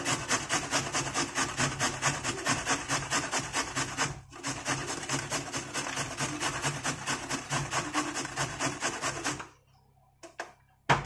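A carrot being grated on a stainless steel box grater: quick, even rasping strokes with a short break about four seconds in. The grating stops near the end and a few short knocks follow.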